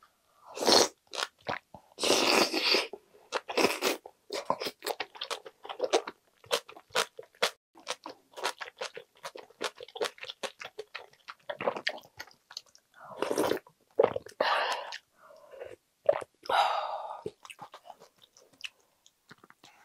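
A person chewing and crunching a mouthful of aged kimchi with rice-cake dumpling soup. Many short, irregular crunches, with a few longer, louder stretches near the start and again about two-thirds of the way through.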